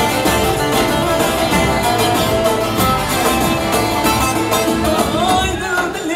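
Dance music with plucked string instruments and a steady beat, playing loud and continuously for a line dance.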